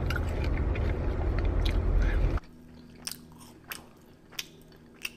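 Close-miked mouth chewing a mouthful of pizza, loud and dense for about two seconds, then quieter with a few separate mouth clicks.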